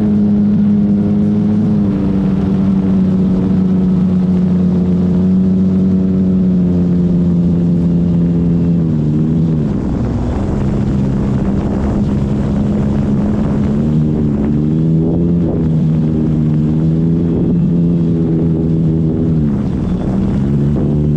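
E-flite Extra 300 RC plane's electric motor and propeller running, a steady pitched drone. The pitch drops about nine seconds in, gives way to a rushing wind noise for a few seconds as the throttle comes back, then picks up again, drops once more near the end and rises.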